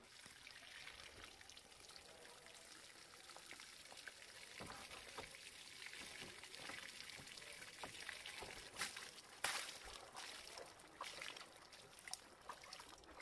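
Water trickling and pouring, faint, dotted with many small clicks and taps, one of them louder about two thirds of the way through.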